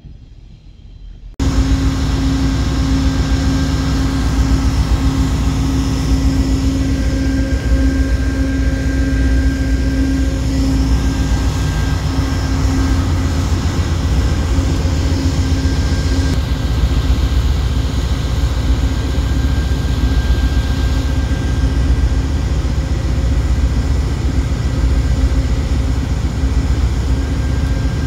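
VIA Rail GE P42DC diesel-electric locomotive running close by, a steady low engine rumble with a constant droning hum. It starts abruptly about a second in, after a quieter stretch.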